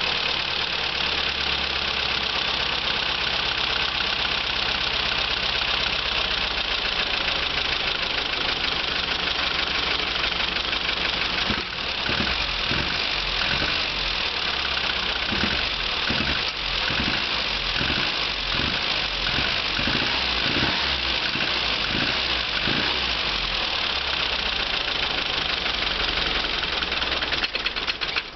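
Austin Mini 1300's A-series four-cylinder engine idling on the choke. As the choke is reduced it runs unevenly in pulses for a while, then falters and stalls near the end when the choke is pushed fully in.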